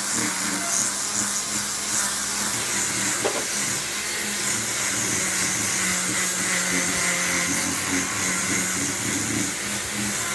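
A workshop machine running steadily with a hissing rush, a faint hum underneath and one brief knock about three seconds in.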